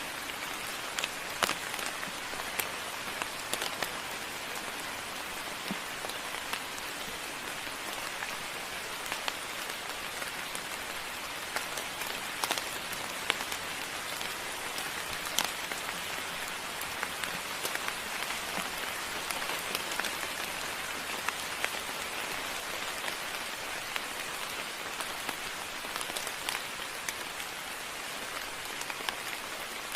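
Moderate rain falling steadily, with many sharp, separate drop hits standing out over the even hiss.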